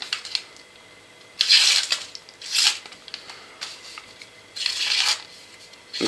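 Half-serrated blade of a Victorinox SwissTool Spirit multitool slicing through newspaper, testing how sharp the edge is: several short swishing cuts, the longest and loudest about a second and a half in, a quicker one about a second later, a faint one, then one more near the end.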